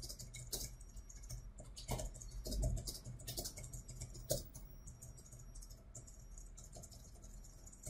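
Typing on a computer keyboard: irregular key clicks as a sentence is typed, strongest in the first four seconds or so and fainter after, over a low steady hum.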